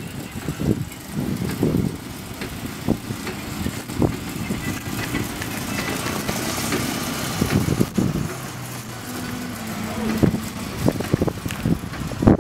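A small replica car's motor running as it drives and turns across pavement, the low rumble rising and falling unevenly.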